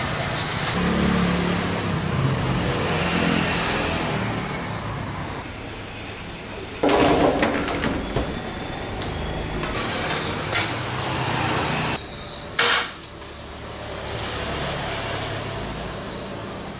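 Loose chillies, garlic cloves, shallots and small green tomatoes tumbling onto a cutting board: a loud clatter about halfway through. A sharp knock follows a few seconds later, over a steady background rumble like passing traffic.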